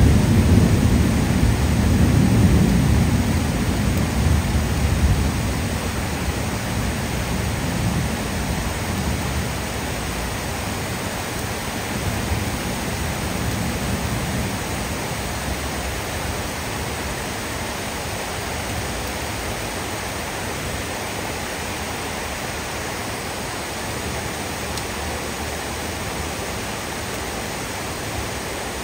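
Heavy rain pouring steadily onto trees and tiled roofs, with a low rumble of thunder in the first few seconds that fades away.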